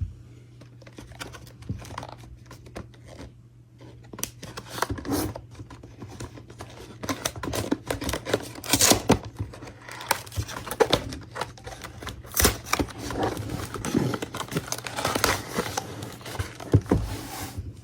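Plastic wrapping on a trading card box being torn and crinkled, with irregular tearing, rustling and crinkling strokes that grow denser and louder a few seconds in, over a steady low hum.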